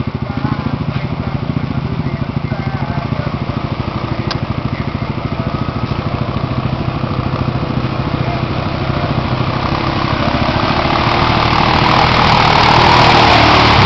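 Yamaha Grizzly 700 ATV's single-cylinder four-stroke engine running steadily in a low, pulsing beat as the quad wades through water, growing louder as it comes closer. From about ten seconds in, a rising wash of churning, splashing water joins it.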